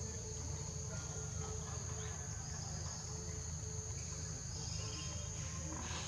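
Steady, high-pitched insect drone, with a low rumble underneath.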